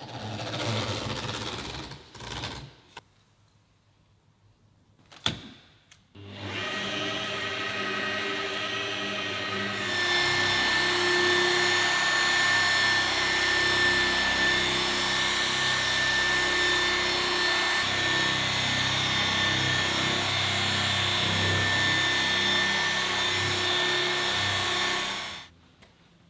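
Rotary polisher with a wool pad running on the car's oxidised, scratched paint, making a heavy cutting pass. Its steady motor sound starts about six seconds in, gets louder about ten seconds in, and stops near the end. A few short bursts of sound and one sharp click come before it.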